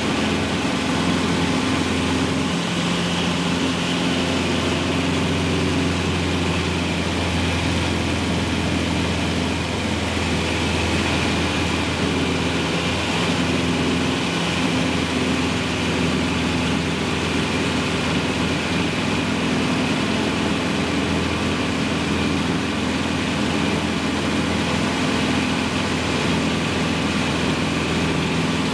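Cessna 150's four-cylinder Continental O-200 engine and propeller running steadily in flight, heard from inside the cabin as a constant low hum with a steady hiss above it.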